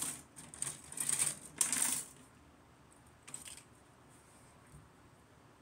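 Plastic model-kit parts and runners clicking and rattling as they are handled, in a quick run of short bursts over the first two seconds and once more about three and a half seconds in.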